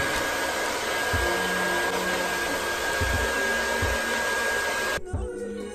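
Hair dryer blowing steadily with a faint high whine, heating a stick-on mirror tile's adhesive so the tile can be pried off the wall. It cuts off abruptly about five seconds in, and music follows.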